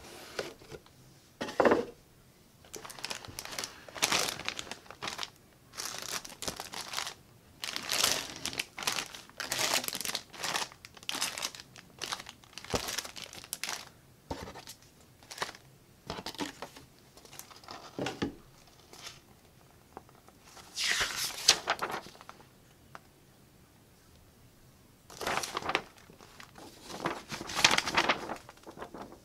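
Clear plastic bags around model-kit parts crinkling and rustling as they are handled, in irregular bursts with short pauses, and a short knock about two seconds in. Near the end, paper instruction sheets rustle as they are turned over.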